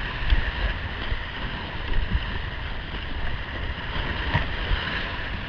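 Whitewater rapids rushing around a kayak, with splashing over the bow and irregular low thumps of water and wind buffeting the microphone.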